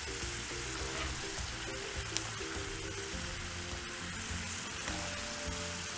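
Cornflour-coated sweet corn kernels deep-frying in hot oil, a steady sizzle, with soft background music of sustained notes.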